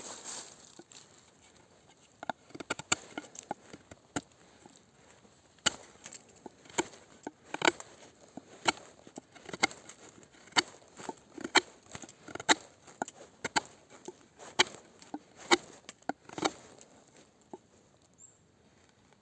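Knife chopping strokes hitting a hard surface, about one sharp strike a second with lighter knocks between, stopping near the end.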